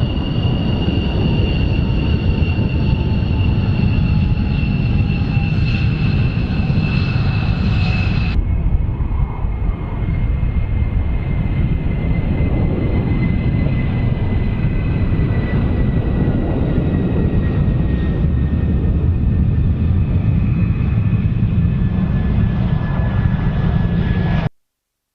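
Fighter jet engine noise: a loud, steady rumble with a high whine that falls slowly in pitch. About eight seconds in, the sound changes abruptly, and it cuts off suddenly near the end.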